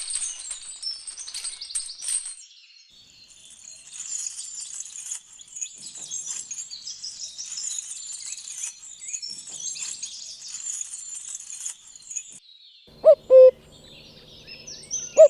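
Birds chirping busily in high, rapid calls. The chirping pauses briefly about 2.5 seconds in and fades out near 12 seconds. Near the end there are two short hooting calls, each rising quickly and then holding a lower note.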